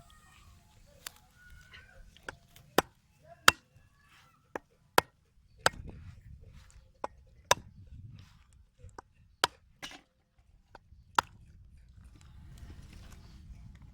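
A blade chopping against wood: about a dozen sharp, separate blows at an uneven pace, most of them in the middle of the stretch.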